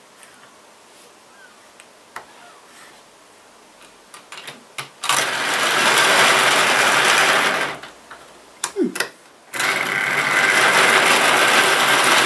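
OO gauge model train running close past the microphone twice, a loud steady whirr each time lasting a few seconds, with a few light clicks before it.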